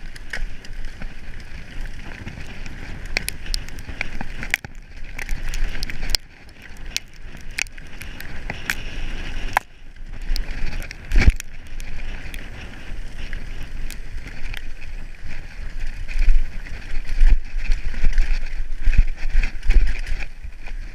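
Giant Reign full-suspension mountain bike ridden fast on a dirt trail. Tyre noise on the dirt and a low rumble run under a constant clatter of clicks and rattles as the bike hits bumps. There is one hard knock about eleven seconds in, and heavier banging and rumbling near the end on the rough wooded descent.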